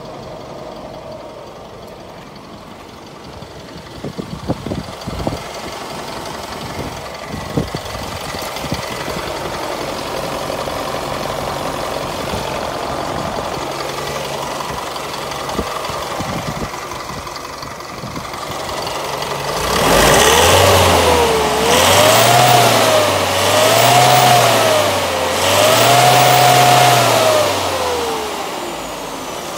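Isuzu Elf truck's diesel engine idling steadily, then revved and let fall back four times in quick succession, about every two seconds, starting about twenty seconds in, before dropping back toward idle near the end.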